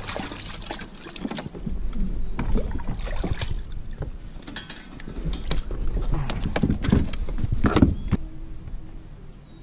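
A small redfish splashing and thrashing at the surface beside a kayak as it is reeled in, in irregular bursts, busiest about seven to eight seconds in as it is lifted from the water, with clicks and knocks of tackle against the kayak.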